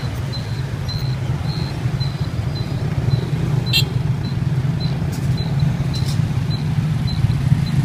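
Steady low rumble of street traffic, with a faint high pip repeating about twice a second and a few sharp clicks near the middle.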